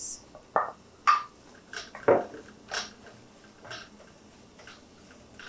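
Sliced red onions tipped from a glass bowl into a nonstick frying pan, then a wooden spoon stirring them, scraping and knocking against the pan in short separate strokes about once a second.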